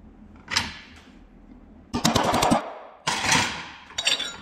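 Hammer striking steel letter punches to stamp an L and an O into a metal motor-mount bracket: one blow about half a second in, a quick run of blows around two seconds in, then two more blows near the end.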